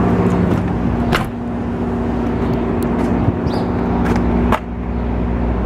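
A motor vehicle running: a steady engine hum with road noise, broken by a few brief clicks, and an abrupt change about four and a half seconds in.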